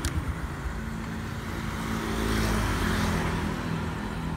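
Carbureted Honda Future 125 motorbike's single-cylinder four-stroke engine idling steadily, very quiet, with the tank nearly out of fuel.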